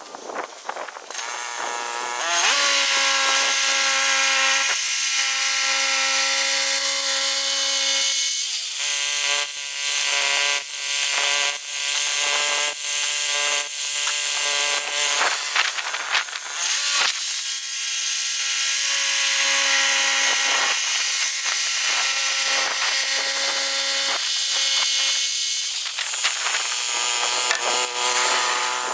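Portable bandsaw sawmill running and cutting through a large pine log. A steady whine sits over a hissing sawing noise, coming up about two seconds in, with the tone shifting slightly a few times.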